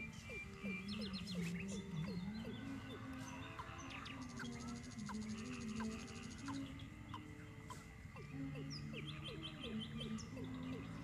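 Faint rural birdsong: many short chirping calls, with a quick high-pitched trill for about two seconds in the middle.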